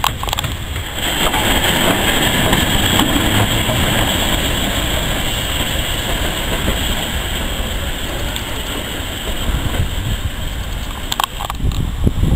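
LNER B1 class steam locomotive No. 61306 running light, passing close and pulling away: a steady rush of train noise that swells about a second in and slowly eases off. A couple of sharp clicks come near the end.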